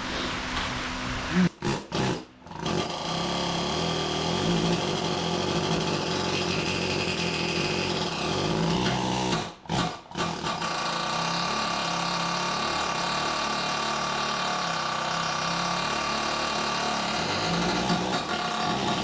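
A power tool running steadily, cutting out briefly twice and starting up again.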